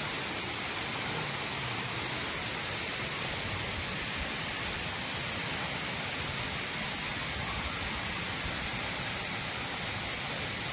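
Steady, even rushing of a waterfall.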